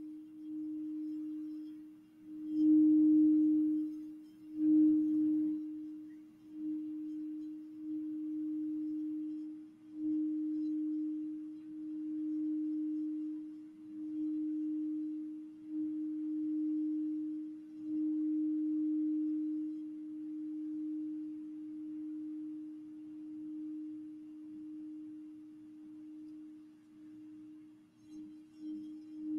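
Crystal singing bowl holding one steady ringing note. It is struck twice with its mallet a few seconds in, then kept sounding by the mallet circling the rim, so the tone swells and fades about every two seconds.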